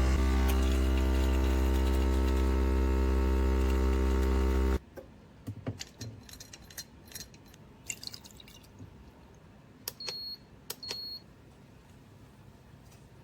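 Espresso machine's pump humming steadily, then cutting off abruptly about five seconds in. Light clinks of cups and utensils follow, and two short high beeps sound near the end.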